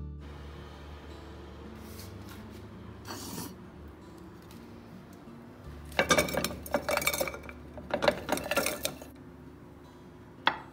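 A spoon scraping and clinking against a china plate as berries are pushed off it into a pot, in two bursts of scrapes and clinks, with a single clink near the end.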